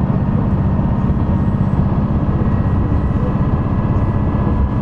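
Shigaraki Kohgen Railway SKR310-series diesel railcar running along the line, heard from inside near the cab: a steady low diesel drone with rolling noise and a faint steady whine above it.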